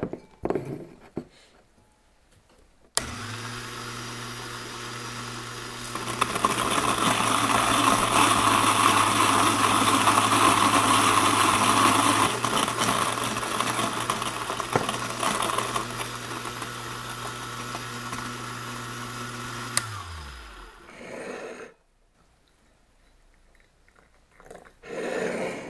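Kalita Next G electric burr coffee grinder switched on. It grinds beans loudly for several seconds, then runs quieter as the burrs empty, and is switched off, its motor winding down in pitch. Near the end there is a short splash of hot water poured from a kettle into a cup.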